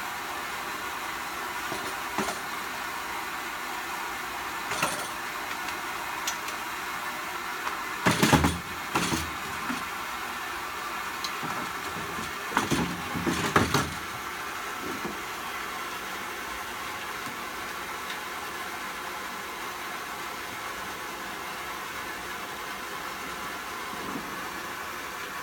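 Clanks and thuds of a wheeled, metal-framed gas pressure washer being manoeuvred and set down on a van's bare metal cargo floor: a cluster of sharp knocks about eight seconds in and another around thirteen seconds in, with a few lighter knocks elsewhere, over a steady hiss of water running into the van's tank.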